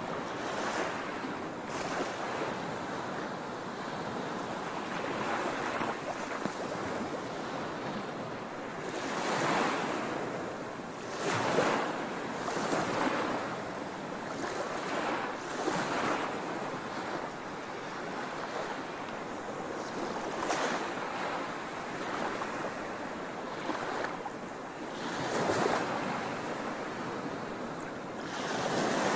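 Concrete Genie floor grinder running, grinding epoxy coating off a concrete floor: a steady noisy grinding sound that swells louder several times.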